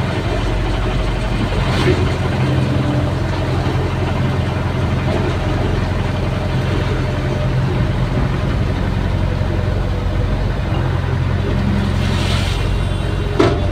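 CAT hydraulic excavator's diesel engine running steadily under load while the arm digs and swings, heard from inside the cab. A sharp knock about two seconds in and another near the end.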